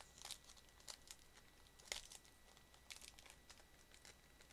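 Faint crinkling of a foil Pokémon booster pack wrapper being handled, a scatter of short crackles with the loudest about two seconds in.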